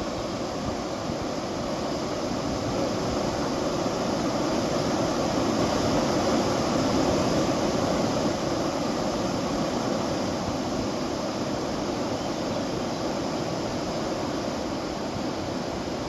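Waterfall: a steady rush of falling water, swelling slightly towards the middle.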